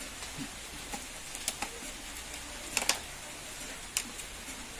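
A few sharp clicks and knocks over a faint steady hiss, the loudest a quick cluster about three seconds in: a TV's power cord being handled and its plug pushed into a wall socket.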